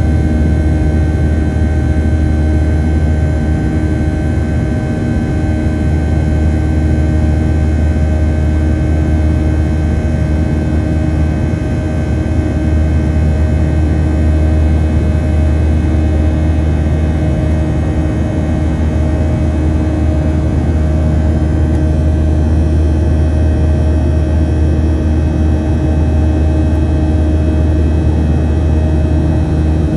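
Boeing 737-800's CFM56-7B turbofan engine heard from inside the cabin beside it during the climb after takeoff: a steady deep drone with several constant whining tones above it, unchanging throughout.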